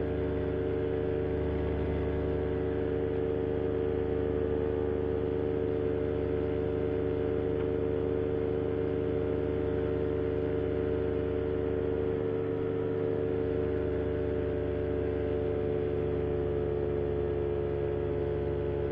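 Vittorazi Moster 185 single-cylinder two-stroke paramotor engine and propeller running steadily at cruise throttle in flight: a constant drone with no change in pitch. It is driving a propeller whose repaired tip has broken off again.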